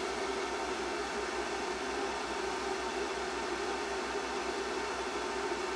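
The cooling fan of a Mastech HY5020E switching power supply runs steadily while the supply charges a battery pack at 10 amps. It makes an even whooshing noise over a low pulsing hum.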